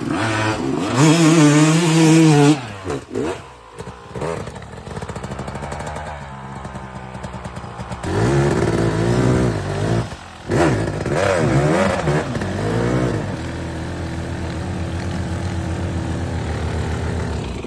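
Dirt bike engine revving hard in rising and falling bursts, settling to a steadier run between them, twice over.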